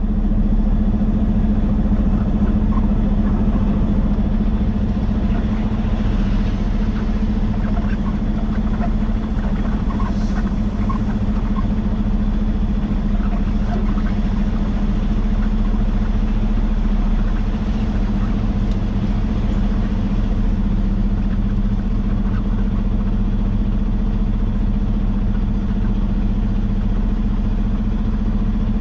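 Diesel engine of a Peterbilt 389 semi truck idling steadily, an even low drone heard from inside the cab.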